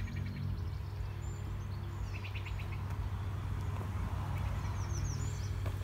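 Songbirds calling in woodland: quick high down-slurred notes and a short chirping trill about two seconds in, over a steady low rumble.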